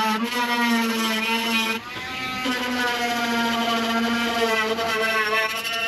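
Power grinder running with a steady whine that wavers in pitch as it works down weld beads over stress cracks in a metal excavator hood. It drops off briefly about two seconds in, then picks back up.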